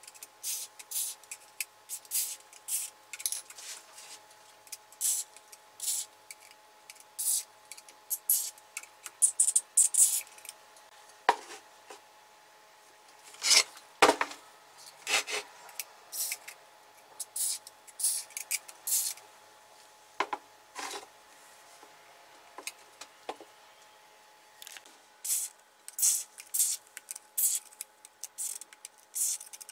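A cleaning rag wiping and scrubbing the dirty metal housing of a portable band saw, in short irregular strokes. A faint steady hum runs underneath.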